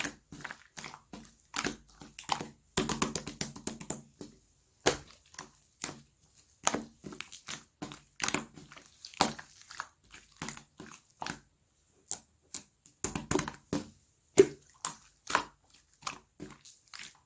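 Slime being squished and pressed by hand, giving irregular sticky clicks and pops, with denser runs of crackling squelches about three seconds in and again around thirteen seconds.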